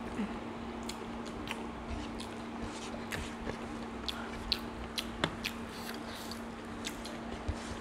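Eating sounds at close range: chewing and lip smacks, and fingers squishing rice together with soft mashed vegetables on the plates. They come as scattered short clicks and smacks over a faint steady hum.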